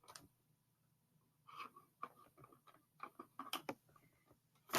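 Faint scattered clicks and taps at a computer keyboard and mouse in a quiet small room, starting about a second and a half in, with a sharper click at the very end.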